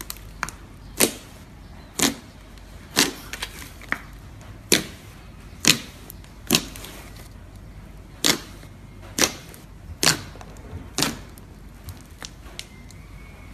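Fingers poking and pressing into thick fluffy slime, trapped air popping out with sharp wet pops about once a second.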